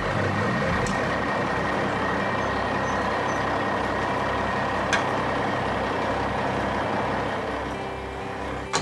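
Steady vehicle engine-like rumble with a faint steady high tone and a single light click about five seconds in.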